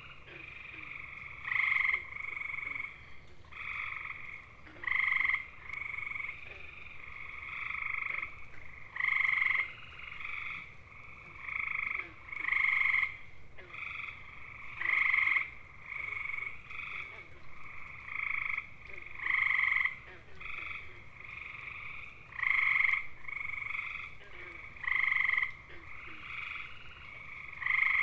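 Male gray tree frogs (Hyla versicolor) giving their mating calls: musical trills, each about half a second long. The louder trills come every few seconds, with fainter trills between them.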